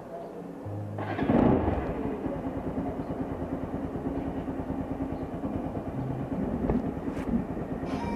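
Motorcycle engine coming in suddenly about a second in and then idling with a steady, rapid beat.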